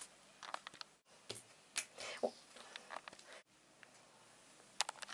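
Faint rustling and scattered small clicks from handling quilted fabric pieces and pins, broken off abruptly twice.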